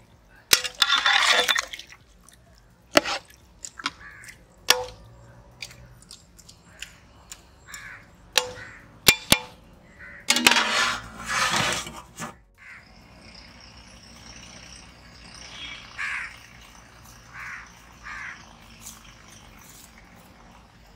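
Steel utensils knocking and clinking against a large steel cooking pot and its lid, a dozen or so sharp ringing clinks with two longer scraping rushes. In the second half this gives way to a quieter outdoor background of insects and a few bird calls.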